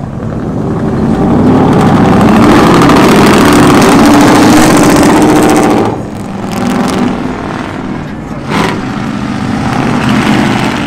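Lifted Ford F-150 pickup driving past, its engine loud and revving for several seconds, then dropping off abruptly about six seconds in. A brief sharp noise follows a couple of seconds later, with lighter traffic noise after.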